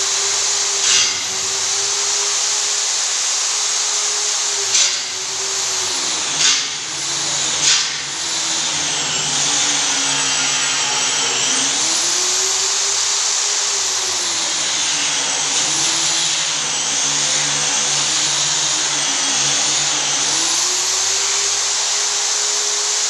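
Handheld electric polisher running on a stainless steel handrail, its motor whine sagging and recovering in pitch as it is pressed on and eased off the pipe. A few brief sharp knocks come in the first eight seconds.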